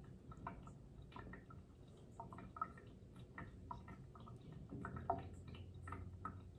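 Faint scattered water drips and small wet ticks as fingers work through a wet kitten's fur in a shallow sink.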